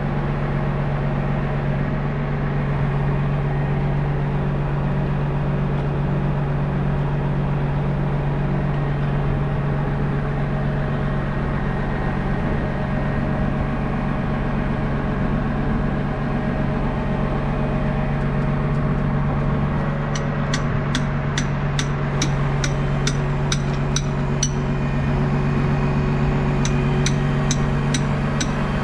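Tow truck's engine running steadily with its boom hydraulics working while it lifts a heavy articulated tractor. About two-thirds of the way through, a run of light, regular clicks starts, roughly two or three a second, pausing briefly and then going on.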